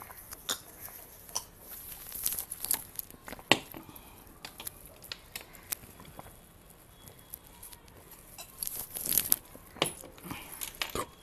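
Close-miked drinking from stemmed wine glasses: scattered sharp clicks and smacks of sips, swallows and glass, busiest about nine seconds in.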